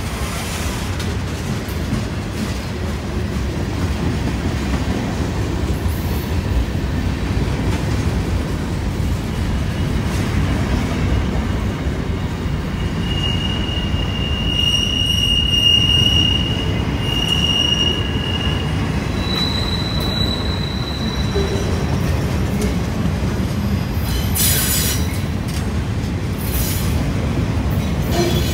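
Freight train of covered hoppers and boxcars rolling past close by, a steady rumble of wheels on rail. Wheel flanges squeal in thin high tones twice about midway, then at a higher pitch, with two short harsher screeches near the end.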